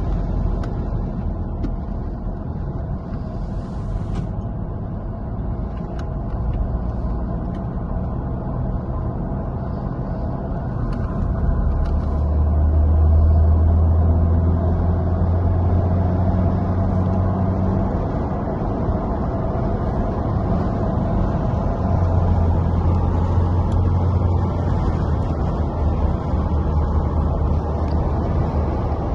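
Car driving at speed: a steady rumble of engine and road noise, with a deeper engine drone that swells about twelve seconds in and again a little after twenty seconds.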